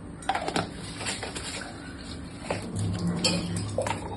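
A spoon clinking and knocking against kitchen dishes, a scattered series of light taps while salt and other chutney ingredients go into a mixer jar. A brief low hum sounds about two-thirds of the way through.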